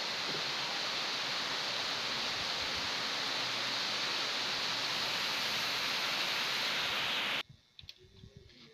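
A steady, even hiss that cuts off suddenly about a second before the end, leaving near silence with a few faint clicks.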